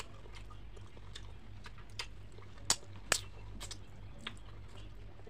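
Close-up chewing and wet mouth clicks of a person eating fried fish, with two sharper smacks near the middle, over a steady low hum.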